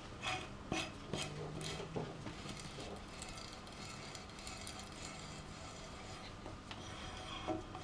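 Faint clicks and scraping of a coil-thread tap being turned by hand down a hole in an oil housing, cleaning up the thread after a thread-insert coil was removed. The clicks are scattered, most of them in the first couple of seconds.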